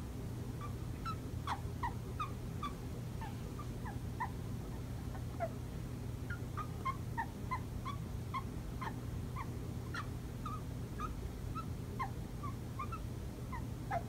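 Cockatoo making a rapid string of short, soft, falling chirps, several a second, with a few sharper clicks among them.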